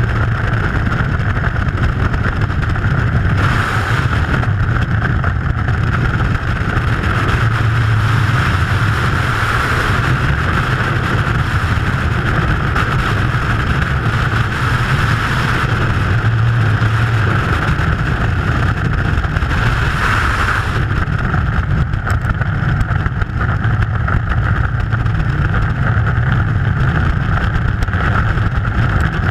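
Freefall airstream rushing over the camera's microphone, a loud, steady wind noise that never lets up.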